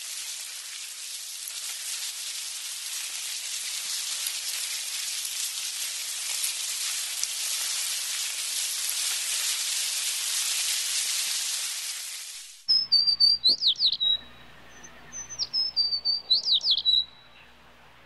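A steady crackling hiss for about twelve seconds. Then it cuts to a spoon-billed sandpiper giving two runs of quick, high chirping calls.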